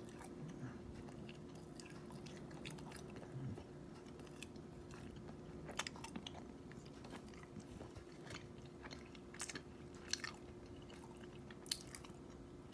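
Faint chewing of a bite of glazed cinnamon roll, with scattered short wet mouth clicks, over a steady low hum.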